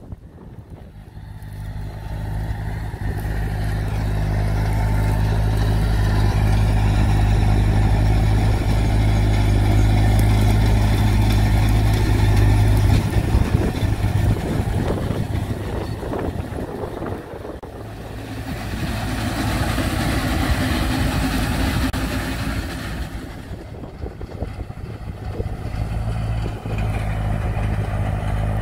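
Diesel tractor engine running steadily under load as it drives and pulls a Massey Ferguson 187V round baler through straw. The sound fades in at the start and grows louder and quieter as the outfit moves, with a hissy rattle over it a little past halfway.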